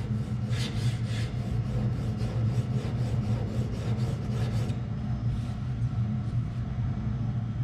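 Steel blade being honed back and forth on an oilstone: quick rasping strokes, about three a second, that stop about two-thirds of the way through. A steady low hum runs underneath.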